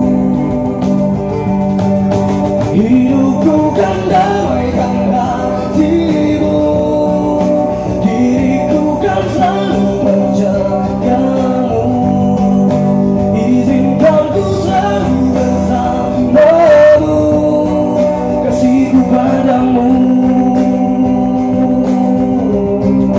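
Acoustic guitar strummed in sustained chords, with a man singing over it at a stage microphone.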